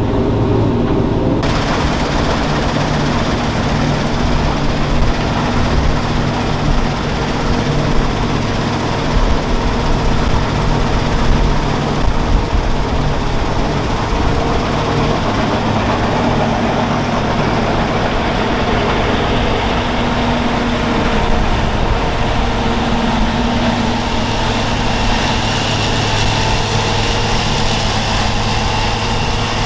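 Heavy farm machine's engine running steadily under a constant rushing noise. A faint high whine comes in near the end.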